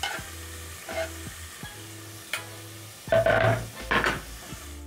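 Chopped white onions hitting hot cooking oil in a pot and sizzling, with a few sharp knocks and scrapes, louder a little after three seconds in and again about a second later. Background music with a steady beat plays underneath.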